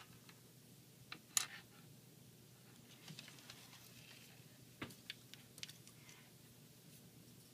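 Hard plastic toy parts clicking and tapping as they are handled and fitted: a few sharp, scattered clicks, the loudest about a second and a half in and another near five seconds.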